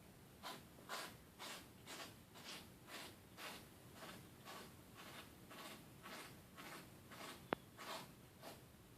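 A cat's rough tongue licking a plastic protective cone in steady, rasping strokes, about two a second, with one sharp click a little past seven seconds. She grooms the cone because it keeps her from licking her own coat.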